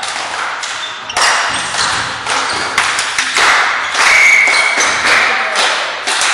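Sharp thuds and taps ringing on in a reverberant sports hall, with a brief steady high tone about four seconds in.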